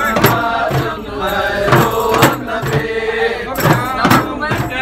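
A group of men chanting together while beating hand-held frame drums, with sharp drum strikes in an uneven rhythm under the voices.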